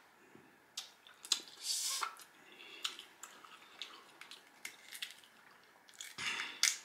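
Close-up wet eating sounds: butter sauce sucked off fingers and chewing, with small scattered clicks of crab shell being picked apart. A louder wet burst comes near the end.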